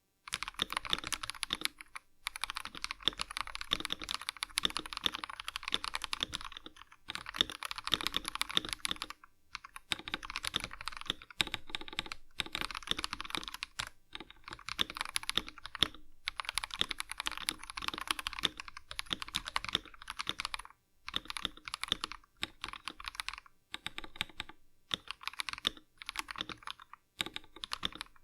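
Typing test on an Akko 5075S 75% mechanical keyboard with prelubed Akko CS Wine Red switches, lubed stabilizers and ASA-profile PBT keycaps in a plastic case: rapid runs of keystrokes in bursts broken by brief pauses.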